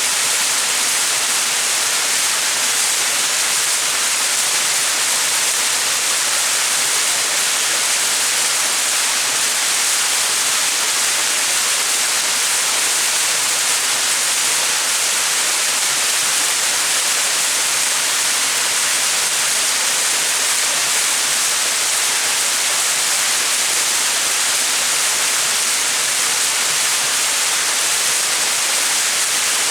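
Small mountain waterfall: water falling and splashing in a steady, even rush, strongest in the high hiss.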